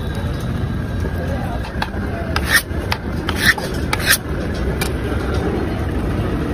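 Knife cutting through a crisp grill-toasted sandwich on a counter: about five sharp, crunchy cuts in quick succession, over a steady low background rumble.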